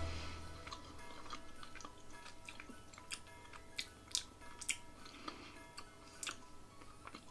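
Quiet chewing of a piece of solid milk chocolate, with a handful of short sharp clicks, the loudest about three to five seconds in, over soft background music.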